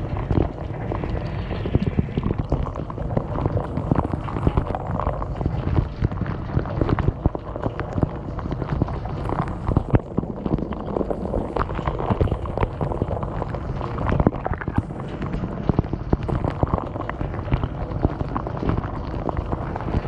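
Dishwasher spray jets pelting the plates, rack and chamber walls: a loud, dense, continuous spattering hiss full of irregular sharp taps as the water strikes, heard from inside the wash chamber.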